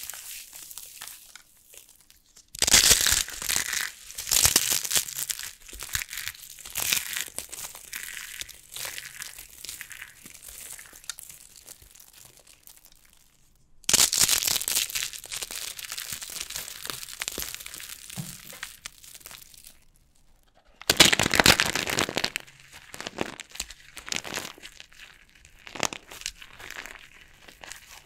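Dry, starch-coated soap being crushed, crunching and crackling. There are three bouts, each starting loud and trailing off into smaller scattered crackles.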